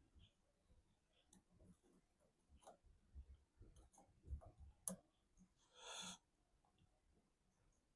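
Faint metallic clicks and taps of piston-ring pliers and a steel piston ring being spread and worked over the piston crown, with one sharper click near five seconds and a brief hiss about six seconds in.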